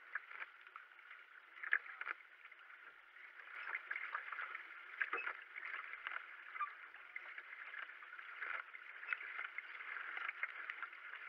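Racing kayak being paddled: the paddle blades splash in and out of the water at an uneven pace, over a steady wash of moving water.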